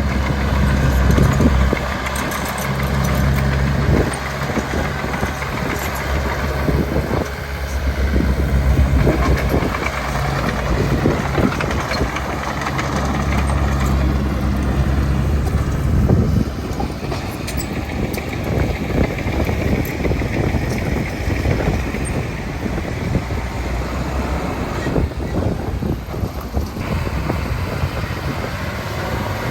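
Heavy diesel earthmoving machinery running, a bulldozer or dump truck working dirt, with a deep engine note and scattered knocks and clanks. The engine note is strong through the first half and eases off about halfway through.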